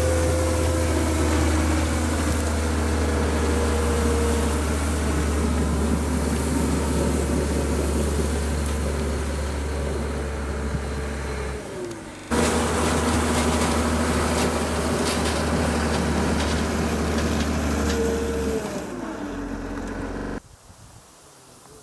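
Vehicle engine running steadily, its pitch falling twice as it slows. The engine sound drops out about twenty seconds in, leaving a much quieter background.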